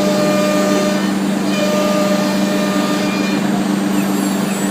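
3-axis CNC wood router running: a steady, loud mechanical hum with several held tones.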